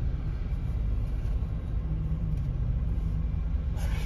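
Low, steady rumble of a car's engine and tyres heard from inside the cabin as it creeps forward in a queue, with a few light clicks near the end.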